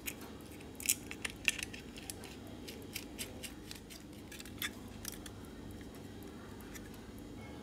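Small metal clicks and taps as crimped ring terminals and washers are fitted onto screw posts on a plastic computer-mouse shell, a quick cluster about a second in and scattered single ticks after. A faint low hum runs underneath.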